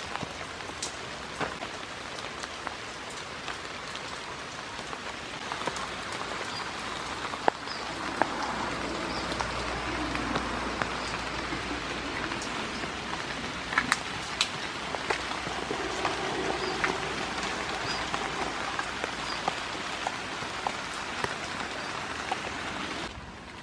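Steady rain falling, an even hiss with many scattered sharp ticks of single drops striking, growing a little louder partway through.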